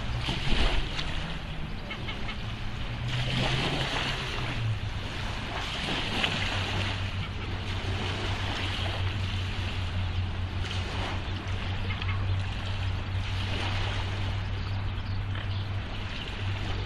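Water and wind noise, with a steady low motor hum underneath that drops slightly in pitch about four to five seconds in.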